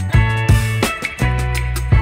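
Background music with held bass notes and a steady beat.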